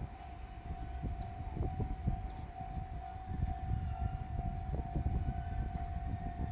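Japanese railway level-crossing alarm sounding as one steady, unbroken tone. Under it is the low rumble of a diesel railcar passing, with irregular knocks from its wheels.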